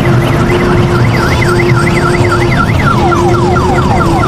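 Electronic siren sound effect from a kiddie-ride electric train: a fast up-and-down wail, which about three seconds in switches to quick falling sweeps, several a second. A steady low rumble runs underneath.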